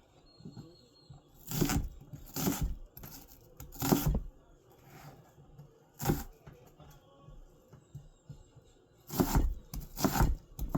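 Handling noises while cooking: a string of short, sharp rustles and knocks, irregularly spaced with quiet gaps, several coming close together near the end.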